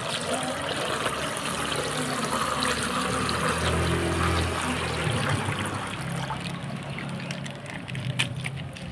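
Liquid pouring and trickling steadily for several seconds.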